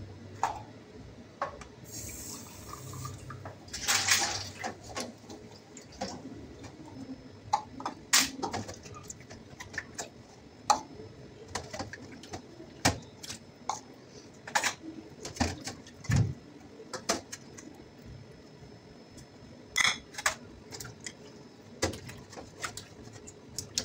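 Dishes being washed by hand in a stainless steel sink: plates, cups and a small pot knock and clink against a metal basin, with water splashing as they are scrubbed with a sponge. The knocks come at irregular intervals.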